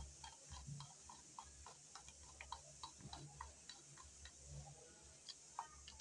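Faint, irregular light clicks, about three a second, of a small screwdriver turning the screws in the plastic connector head of an immersion water heater rod. The screws are being tightened gently by hand.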